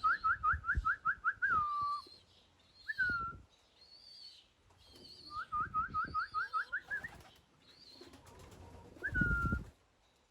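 A person whistling the call used to bring racing pigeons in to water and feed: a quick run of about eight rising chirps ending on a falling note, a lone falling note, a second run of chirps, then another falling note near the end. Dull low thumps come with some of the whistles, the loudest near the end.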